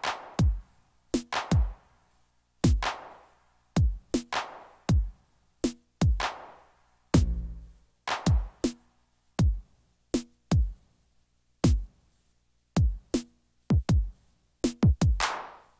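Roland MC-707 groovebox sounds triggered by a Yamaha Tenori-on in Bounce Mode: separate electronic drum hits in an uneven stop-start pattern. Deep thumps drop in pitch, hissy hits die away, and a few short pitched notes sound among them.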